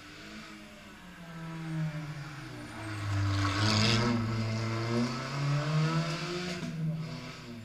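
Rally car engine working through a gravel hairpin: the engine note drops as it slows for the bend and is loudest about halfway, with a brief rush of noise, then climbs again as the car accelerates out.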